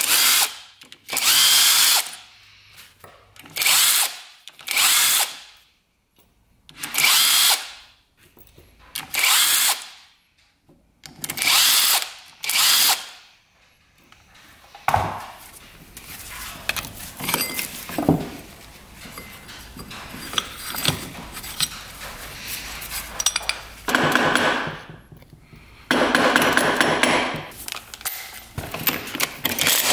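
Power drill spinning in about eight short bursts of under a second each, then a stretch of lighter clattering of metal parts, then two longer runs near the end, as fasteners come off the clutch side of a two-stroke dirt bike engine.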